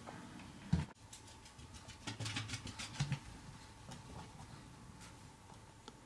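Soft thumps and light clicking of small pets moving about a cardboard box: a cat climbing into the box and Chihuahuas stepping around it. Two dull thumps, one just under a second in and one about three seconds in, with a scatter of faint ticks between them.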